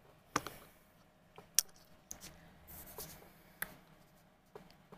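Light clicks, taps and rustles of hands and fingernails moving right next to the camera's microphone, with about five sharp taps scattered among them.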